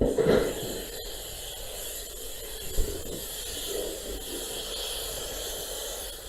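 Steady hiss of water being sprayed onto a fire, opening with a brief thump.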